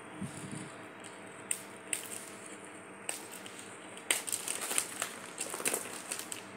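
Plastic packaging crinkling and cardboard rustling as hands unwrap and pull out the parcel's contents, with sharp crackles that come thicker and louder from about four seconds in.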